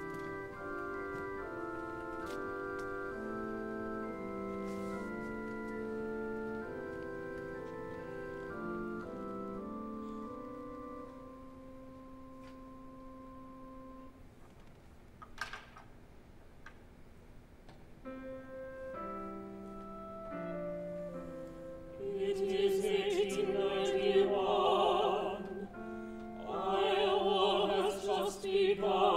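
Live chamber-opera music: instrumental chords move in steps for about ten seconds, then thin to a single held note, with a brief click near the middle. Quieter chords return, and about twenty-two seconds in, operatic singing with wide vibrato comes in over them and grows loud.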